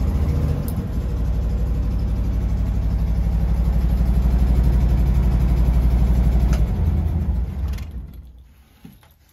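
1979 VW Type 2 bay window bus's air-cooled flat-four engine running steadily, heard from inside the cab; it stops about eight seconds in.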